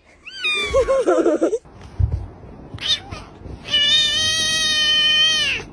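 An unhappy cat meowing: a few short rising-and-falling meows at first, then one long, steady meow of nearly two seconds that drops off at the end.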